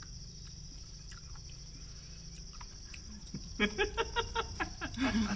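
Steady high chirring of night insects. About three and a half seconds in, a person breaks into a quick run of laughter.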